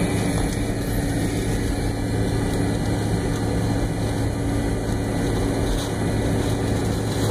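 Inside the cabin of a McDonnell Douglas MD-88 airliner taxiing, its two rear-mounted Pratt & Whitney JT8D turbofans running with a steady hum under an even rush of cabin noise.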